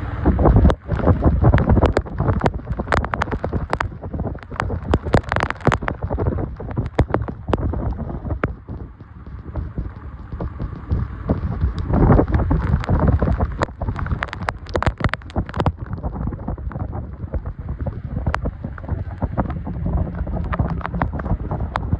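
Heavy rain falling, with wind buffeting the microphone in a low rumble and many sharp, irregular taps and knocks close to it, densest in the first half.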